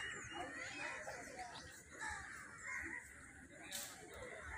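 Faint outdoor birdsong: many birds calling in short chirps and calls, with a single brief click near the end.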